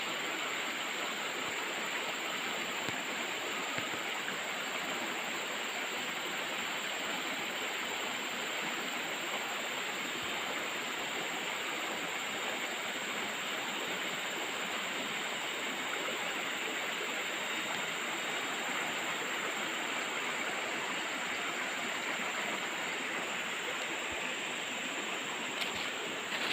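River water flowing over rocks, a steady even rushing.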